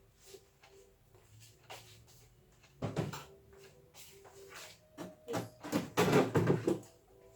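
Knocks and clatter of things being handled and set down while a fridge is cleared out, with a sharp knock about three seconds in and a quick run of louder knocks near the end.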